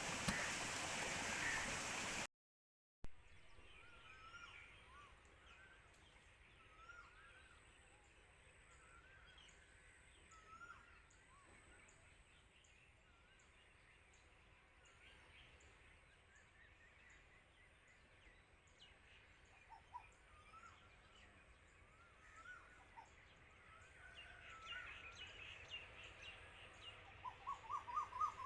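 Faint birds chirping: many short notes that rise and fall, with a quick run of rising notes near the end. It opens with about two seconds of loud rushing noise that cuts off abruptly.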